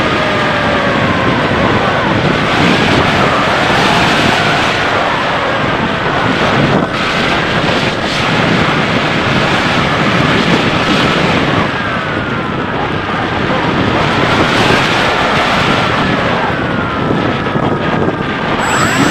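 Wind rushing over the onboard camera of a Bixler 3 RC foam plane in flight, with the whine of its electric brushless motor and propeller held at a throttled-back setting, the pitch drifting slowly up and down.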